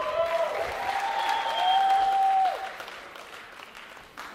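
Studio audience applauding and cheering, swelling to a peak and dying away about two and a half seconds in. A single thump near the end.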